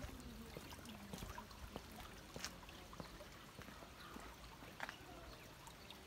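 Faint trickling of water in a narrow concrete irrigation channel, a soft steady hiss with many small scattered ticks and splashes.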